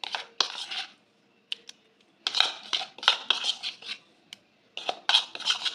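A utensil scraping and clinking against bowls as thick yogurt-spice masala is scooped onto raw chicken pieces, in three short bursts with single sharp clicks between them.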